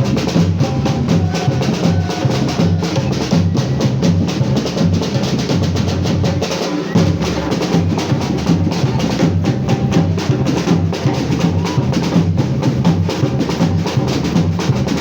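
Batucada, a Brazilian samba drum ensemble, playing a fast, dense, steady rhythm: deep drum beats repeating under rapid high strokes.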